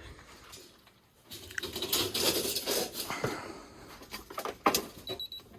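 Scrabbling and rustling of a rabbit being handled for weighing, with scraping and pattering for about two seconds, then a few sharp clicks and knocks near the end.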